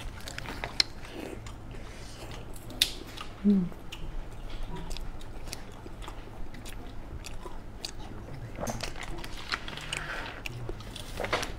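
Close-miked chewing of soft bread, with wet mouth noises and small lip clicks scattered through. A short vocal hum about three and a half seconds in is the loudest moment.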